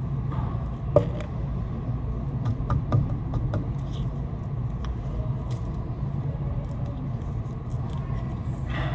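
Steady low rumble of restaurant room noise, with scattered light clicks and a few sharper knocks, the loudest about a second in.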